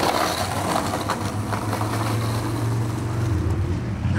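Skateboard wheels rolling over rough asphalt: a steady low rumble, a little louder in the middle.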